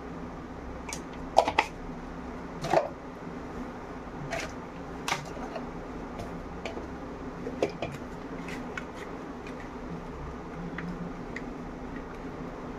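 Scattered sharp clicks and taps of kitchen handling as turmeric powder is sprinkled over raw fish steaks in a plastic tub and rubbed in by hand, the loudest in the first three seconds. A steady low hum runs underneath.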